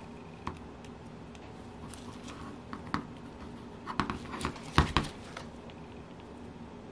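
Light scattered clicks and knocks of a Saito FA-82 model engine's metal parts being turned over and handled in gloved hands, with a cluster of sharper knocks about four to five seconds in.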